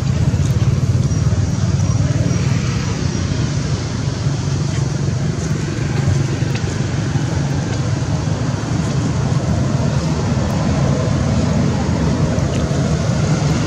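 Steady low rumble with a noisy background haze.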